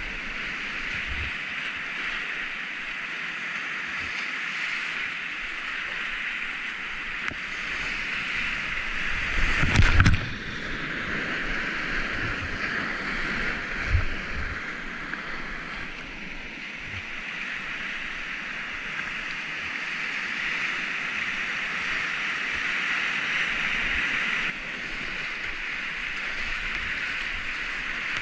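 Whitewater rushing steadily around a kayak on a big-volume river running about 75 m³/s. A loud thump about ten seconds in, and a smaller one a few seconds later.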